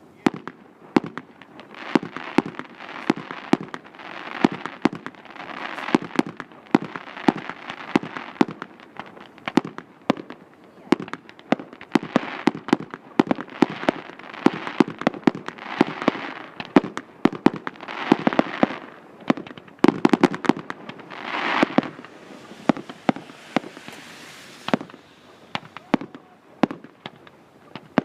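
Fireworks display: a rapid run of sharp bangs from bursting shells, several a second, with swells of hissing crackle between them.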